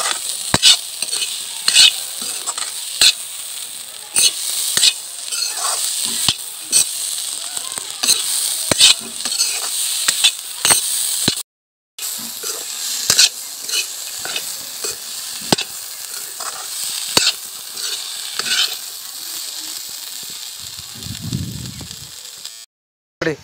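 Green peas sizzling in hot spiced oil in a metal kadhai, with a metal ladle scraping and clinking against the pan about once a second as the peas are stirred and fried.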